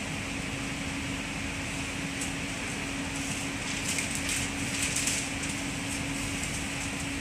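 Cabin noise of a moving NS Intercity train heard from inside the passenger coach: steady running rumble and hiss with a constant hum, and a few light ticks about four to five seconds in.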